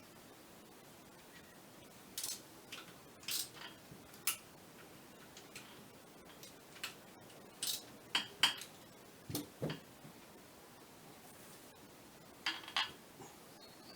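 Metal parts and hand tools clinking and clicking irregularly, about a dozen short knocks, while a Scania electronic clutch actuator is being assembled by hand.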